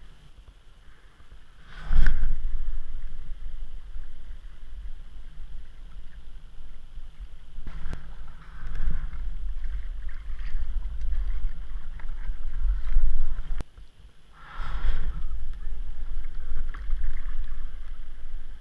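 Wind buffeting a kayak-mounted action camera's microphone, with water sloshing at the hull. It comes in surges, louder about two seconds in and again near the middle and two thirds through.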